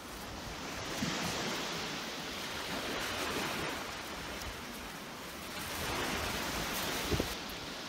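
Surf washing on a sandy beach, a steady hiss that swells and eases twice, with a couple of soft knocks near the end.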